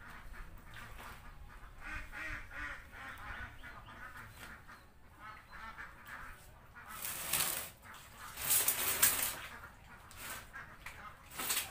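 Domestic ducks quacking in a busy, continuous chorus. Two loud bursts of rushing noise about seven and nine seconds in, and a shorter one near the end, briefly drown out the quacking.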